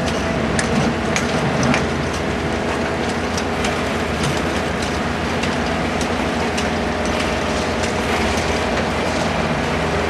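A work machine's engine running steadily during track work, with many irregular sharp clinks and knocks of tools and material on the track bed.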